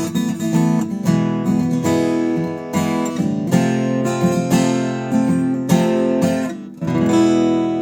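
Newtone Gypsy Road GA 45 acoustic guitar played unplugged, a quick run of picked and strummed chords. Near the end the playing drops off briefly, then one chord is struck and left ringing.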